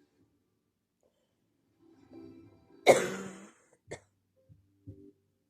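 A person coughing: one hard cough about three seconds in, then a short second cough a second later, followed by faint throat sounds.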